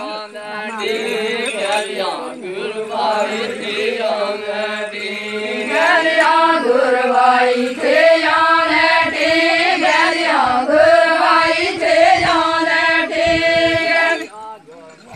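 A group of women singing an Adivasi folk song together in one melody, with long held notes. The singing breaks off about a second before the end.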